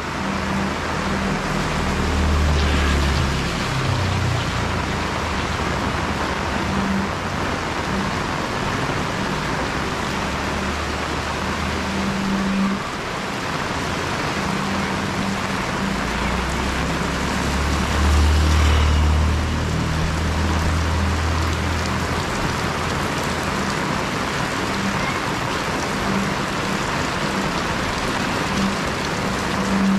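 Heavy rain pouring steadily. A low buzz keeps cutting in and out over it, the camera stabilizer fault that the rain caused. A deeper rumble swells twice, most strongly a little past halfway.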